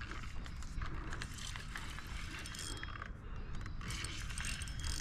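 Spinning fishing reel being cranked, its gears turning with a fine clicking whir as line is wound in.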